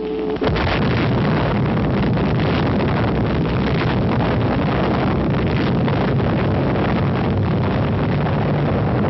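Atomic bomb explosion on an old newsreel soundtrack: a sudden loud onset about half a second in, then a long, steady rumbling blast noise that does not let up.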